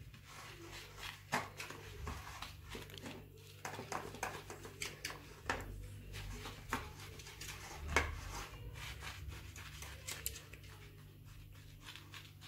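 A metal spoon pressing and scraping a crushed-Oreo and butter crumb base into a metal springform pan: irregular soft clicks and scrapes, with a louder knock about eight seconds in, over a low steady hum.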